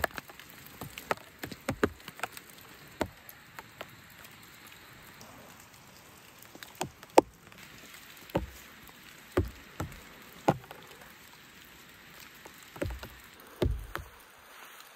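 Rain falling steadily with a soft hiss, broken by irregular sharp taps of heavy drops, about fifteen in all and loudest about halfway through.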